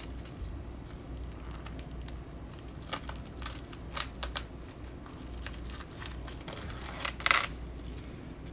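Plastic and cardboard packaging of a microwave dinner crinkling and rustling as it is handled, with scattered clicks and a louder crackle about seven seconds in.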